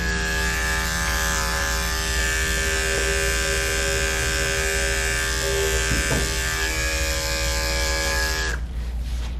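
Andis electric dog grooming clipper running steadily as it trims the fur on a dog's front leg. It gives a constant even hum that cuts off near the end.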